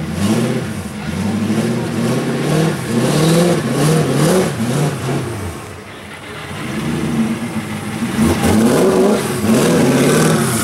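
The V8 of an 1800 hp modified Ford GT is being revved while the car stands still. The pitch climbs and falls in repeated blips, drops back to a lower, quieter run about six seconds in, then rises again in more blips.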